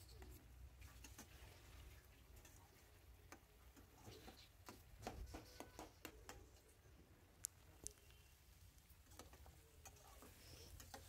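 Faint, irregular ticks and scrapes of a spoon stirring masala paste frying in oil in a metal pan, over a steady low hum.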